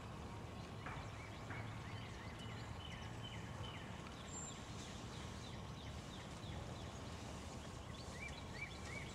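Faint bird calls: several runs of short, evenly spaced notes, the clearest run near the end, over a low steady rumble.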